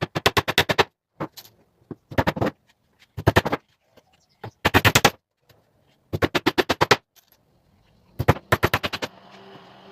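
Runs of rapid sharp knocks, about a dozen a second, in quick bursts under a second long, separated by short pauses: a hammer driving small nails into pallet wood. The knocking stops near the end, leaving a faint steady hum.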